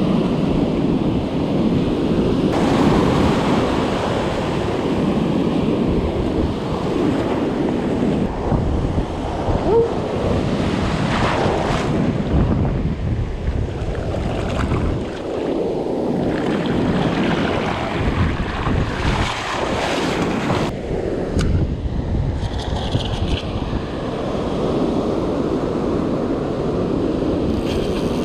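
Ocean surf breaking and washing up over the sand, with wind buffeting the microphone.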